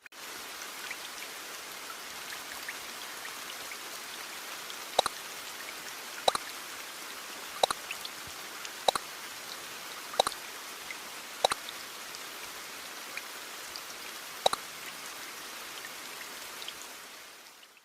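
Steady rain with single water drops falling at even intervals, about one every 1.3 seconds, starting about five seconds in; the rain fades out at the end.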